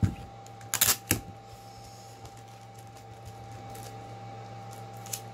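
Hands handling and folding thin tissue paper on a wooden desk: a few short rustles and taps in the first second or so and one more near the end, over a steady background hum.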